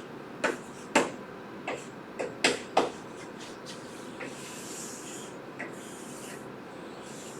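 Writing on a board: a quick run of about seven sharp taps in the first three seconds, then a few soft scratching strokes.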